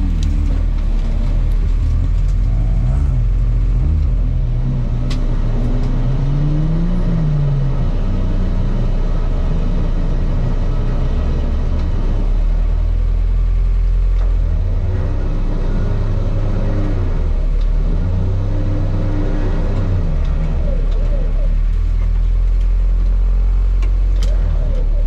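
Niva 4x4's engine running hard, its pitch rising and falling several times as it is revved up and eased off, over a steady low rumble.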